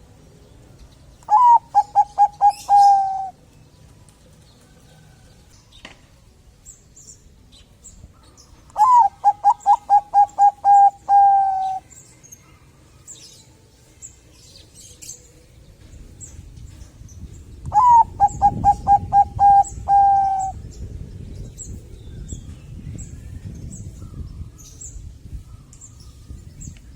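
Bangkok-line zebra dove (perkutut) singing three song phrases about eight seconds apart. Each phrase is a quick run of short coos that opens on a higher note and ends on a longer held note.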